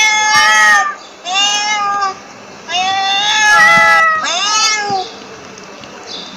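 A cat meowing: four drawn-out, fairly high meows about a second long each, with short gaps between them; the last one rises and falls in pitch. It goes quieter after the fourth.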